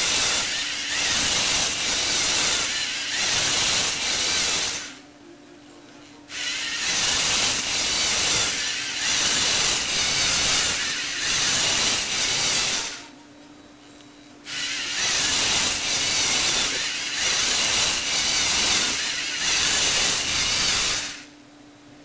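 Lego Mindstorms NXT servo motors driving a Lego Technic gear train, whirring and grinding in pulses about once a second. The motors stop for about a second and a half twice, and again about a second before the end.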